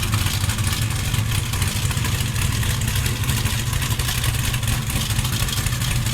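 American V8 muscle car engine idling steadily, a deep, even exhaust note.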